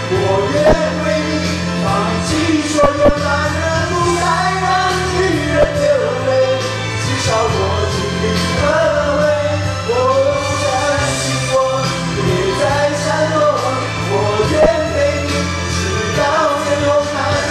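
Karaoke: a man's voice singing a Mandarin pop ballad into a microphone over the backing track, both coming through the room's speakers.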